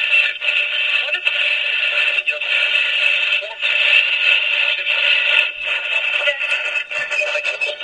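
Frank's Box ghost box sweeping a car radio tuner through the AM/FM band: a choppy stream of radio static and clipped snatches of broadcast voices and music from its built-in speaker, broken by many short gaps.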